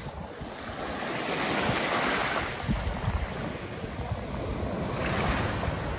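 Sea waves breaking and washing up a pebble beach, swelling about two seconds in and again near the end. Wind rumbles on the microphone from about halfway through.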